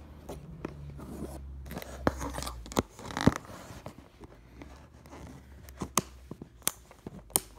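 Toy packaging being handled and worked open: scattered small clicks and taps, with a short rustling scrape about three seconds in.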